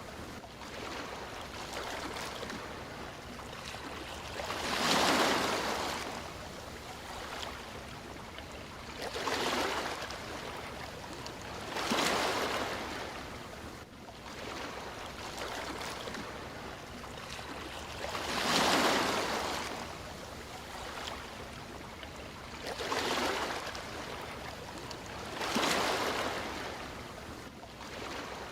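Sea waves washing onto a shore: a steady surf hiss with six louder surges of breaking water, a few seconds apart.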